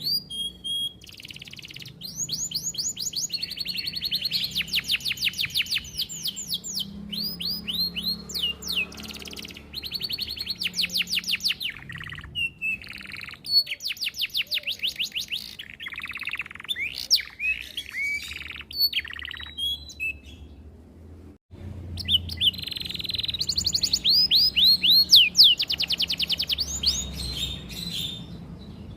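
A domestic canary singing a long song of fast trills and rolls: rapid runs of repeated sweeping notes in phrases of a few seconds, broken by short pauses, with a brief break about two-thirds of the way through.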